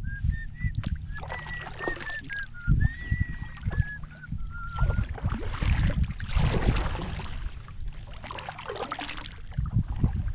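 Kayak paddle strokes: the blades swishing and splashing through the water, with a rumble of wind or hull noise on the microphone. A thin, high, wavering tone comes and goes through the first half.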